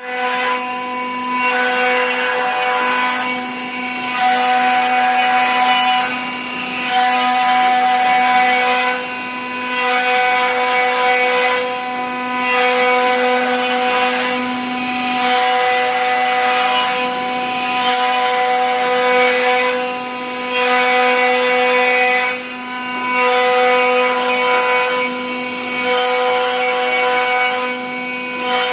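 Spindle of a 4-axis rotary CNC router cutting wood, a steady pitched whine over a hiss of cutting. The cutting noise swells and eases every two to three seconds as the tool makes its passes.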